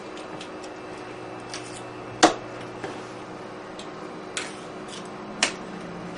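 Small objects knocking and tapping against a desk and the floor as a cat swats them off, in a few sharp knocks. The loudest comes about two seconds in and another strong one near the end, over a steady low hum.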